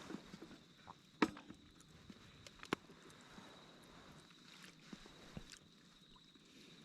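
A few scattered sharp clicks and knocks, two of them louder, over a thin steady high tone.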